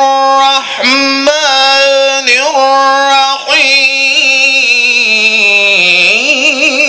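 A male Qur'an reciter chanting in the melodic, drawn-out style, holding long ornamented vowels into the microphone. After three short phrases comes one long held note that sinks lower and then rises back with fast trills near the end.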